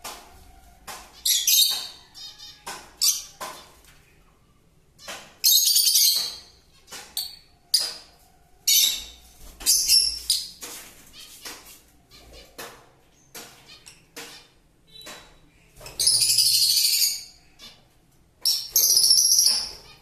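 Lovebirds calling: five loud, harsh, high-pitched screeches of about a second each, with shorter chirps and clicks between them.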